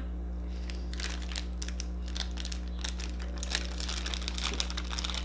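Small clear plastic bag crinkling as it is bitten and then pulled open by hand, a run of quick crackles.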